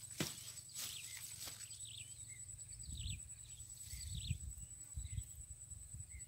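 Short chirping calls repeating every second or so over a steady high-pitched hum, with a single sharp knock just after the start and low rumbles in the second half.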